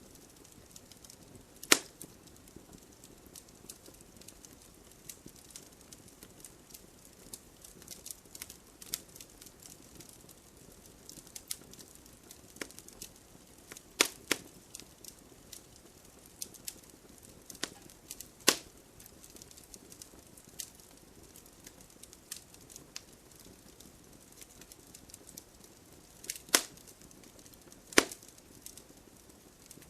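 Wood fire burning in a fireplace, the logs crackling: a steady run of small snaps and ticks, with five sharp, louder pops scattered through, over a faint hiss.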